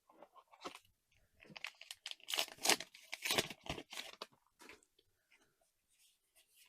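Foil booster pack wrapper being torn open and crinkled, a run of irregular crackles and rustles that is busiest in the middle and fades out near the end.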